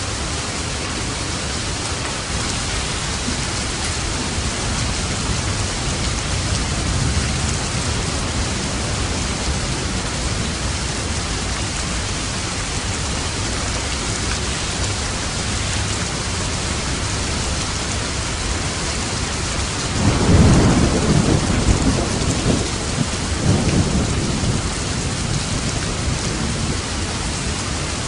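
Steady heavy rain with a rumble of thunder. The thunder breaks about two-thirds of the way through and rolls on in a few surges for several seconds.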